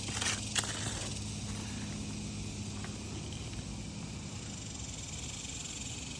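Roof repair work on old asphalt shingles: a short scrape and a sharp click about half a second in, then a fainter click near three seconds, over a steady low hum. A faint high hiss comes in after about four seconds.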